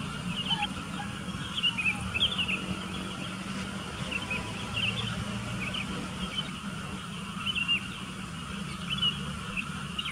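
Sooty-headed bulbuls chirping: many short, quick high calls scattered throughout, over a steady low hum.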